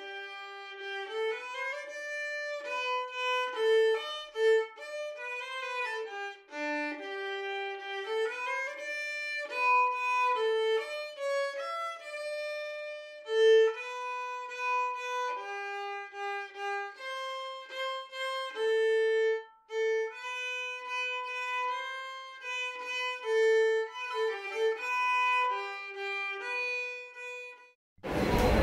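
A solo violin playing an unaccompanied melody, one note at a time. Near the end it cuts off and the noise of a busy indoor space takes over.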